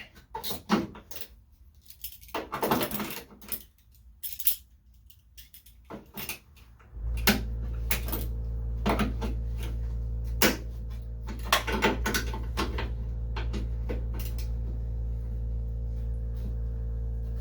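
Metal hand tools clinking and scraping against metal while a stuck fastener is worked loose. About seven seconds in, a steady low hum starts and runs on under further clanks.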